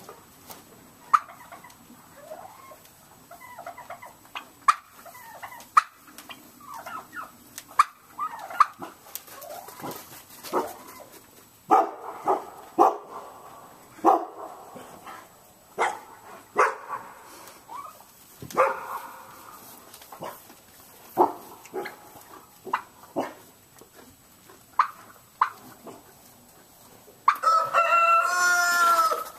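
Farmyard poultry calling: short clucking calls scattered throughout, then one loud, drawn-out call lasting about two seconds near the end.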